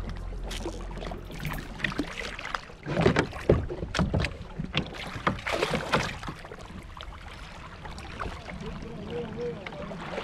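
Water splashing and slapping against a fishing kayak's hull, with a run of louder, irregular splashes between about three and six seconds in.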